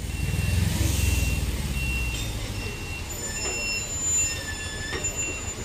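Warning beeper on the heavy-haul truck carrying the train car, sounding a steady series of beeps about once every 0.8 seconds over the low rumble of its diesel engine.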